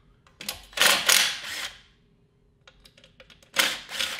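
Cordless impact driver hammering on a bolt of a GY6 scooter engine, in two bursts: one of about a second and a half, then a shorter one near the end, with a few light clicks between them.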